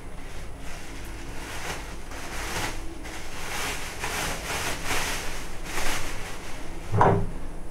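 Thin plastic bag rustling and crinkling as it is pulled out and handled, with a brief vocal sound near the end.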